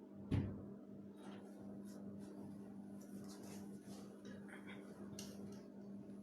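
A single dull thump about a third of a second in, followed by faint scattered clicks and rustles, all over a steady low hum.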